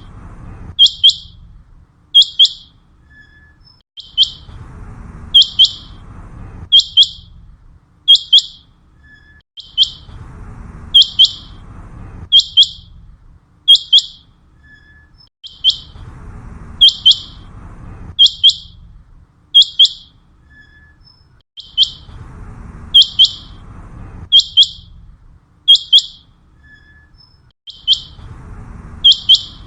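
Common quail calling: sharp, high, clipped notes, mostly in quick pairs, repeated about once a second without a break, the quail call used to lure birds when hunting.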